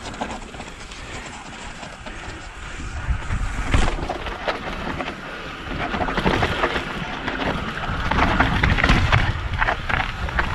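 Mountain bike rolling down bare rock and loose gravel: wind rushing over the camera microphone, with many short knocks and rattles from the tyres and bike over the rough surface, louder and busier in the second half.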